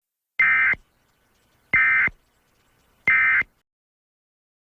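Emergency Alert System end-of-message (EOM) data tones: three identical short buzzing bursts about 1.3 s apart, marking the end of the alert.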